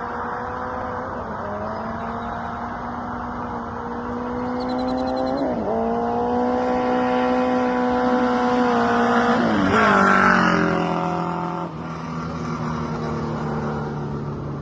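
Kawasaki KZ650 chopper's inline-four engine running under way. Its note rises and holds, dips briefly about five and a half seconds in and again near ten seconds where it is loudest, then settles to a lower steady note for the last few seconds.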